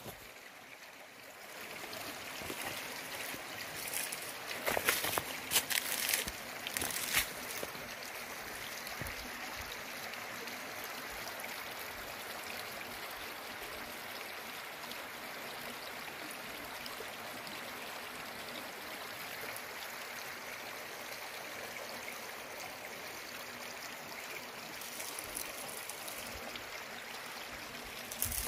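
Steady outdoor rushing noise, even throughout, with a few short, louder noises about four to seven seconds in.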